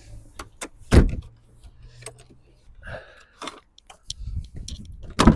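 Clunks and knocks from a car door being handled and fitted, with two loud knocks, about a second in and near the end, and smaller clicks between them. A low hum runs under the first half.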